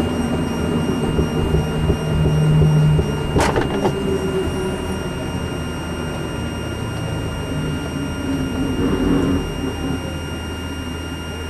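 Helicopter turbine engine and rotor running steadily, with a constant high whine over a lower hum. A single sharp knock comes about three and a half seconds in.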